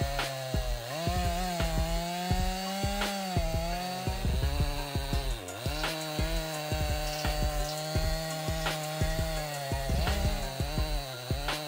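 Gasoline two-stroke chainsaw running at high revs while crosscutting a thick log, its engine pitch wavering as the chain bites into the wood and sagging briefly under load about five seconds in and again near the end.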